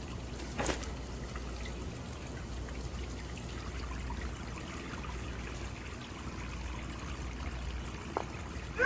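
Steady hiss of water running from a washroom tap into a sink, over a low hum, with one sharp click less than a second in.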